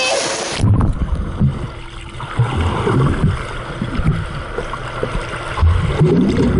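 Water splashing at the surface, then about half a second in the sound turns muffled as the waterproof camera goes under: an underwater rumble with bubbling and irregular low thuds from a small child swimming close by.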